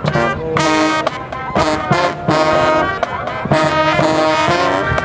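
A university marching band playing, its brass section sounding loud, short chords in a brisk, punchy rhythm.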